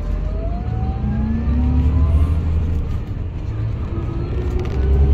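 Coach engine and road rumble heard from inside the passenger cabin as the coach drives on. The engine note rises for about two seconds, breaks off, then rises again from about three and a half seconds in.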